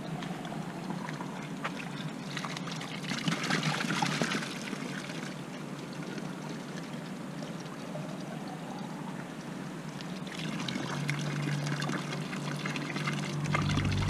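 Spring water running from a metal spout into a drinking bottle held beneath it as it fills, splashing louder for a moment about three seconds in.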